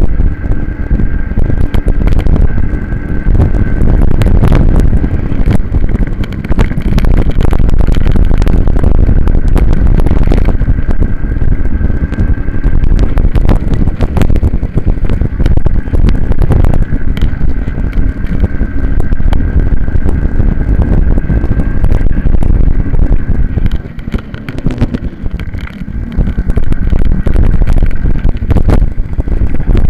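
Minibike engine at race pace, heard through an onboard camera, with heavy wind buffeting on the microphone. The sound drops for about two seconds near the end, then comes back up.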